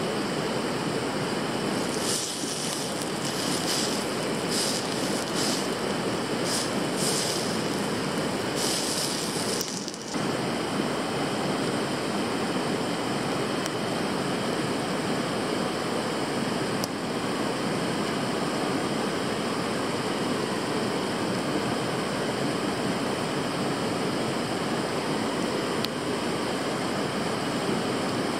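Steady rushing of a river flowing over its rocky bed, with a few brief hissing bursts in the first ten seconds and a couple of faint clicks later on.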